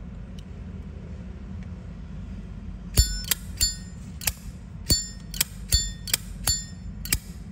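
Zippo lighter lid flicked open and snapped shut again and again from about three seconds in, each metallic clack ringing with a clear bell-like chime, the 'bell tone' prized in these lighters. Before that, only a faint steady hum.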